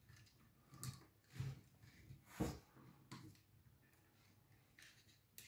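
Near silence broken by a few faint clicks and knocks of small parts being handled, the loudest about two and a half seconds in.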